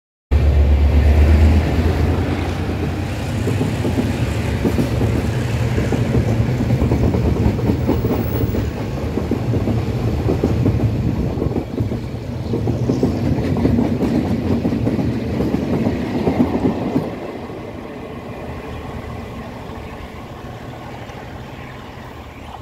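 Taroko Express electric multiple unit passing at speed, its wheels clattering steadily over the rails with a low hum at first. About 17 s in the sound drops and then fades away as the train recedes.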